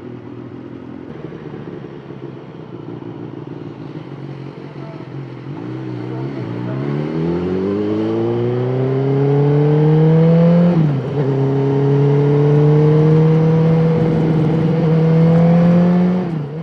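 A vehicle engine pulling away: a steady hum, then the revs climb for several seconds, drop briefly with a gear change about two-thirds of the way through, and climb again as it keeps accelerating.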